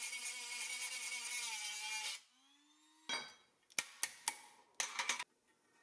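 Cordless drill running with a steady whine on a fastener in thin sheet steel, stopping about two seconds in. It is followed by a string of light, sharp metallic taps and clicks as a thin metal rod is worked against the part.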